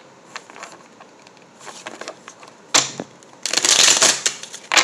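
A tarot deck being riffle-shuffled on a wooden table. A few soft card taps come first, then a sharp snap, then a dense, fast fluttering riffle a little after the middle, and the deck is bridged back together near the end.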